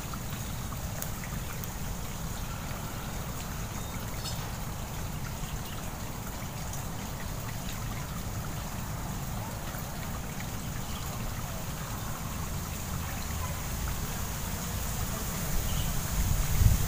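Steady outdoor ambient noise: a low rumble with a faint high hiss, and a few louder low bumps near the end.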